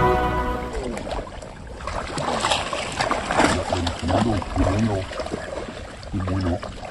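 Water splashing and sloshing in a fish pond, with faint voices in the background.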